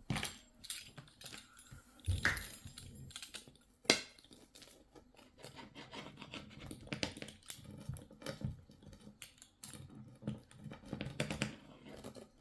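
Irregular clicking and tapping of kitchen items being handled, with one sharp knock about four seconds in.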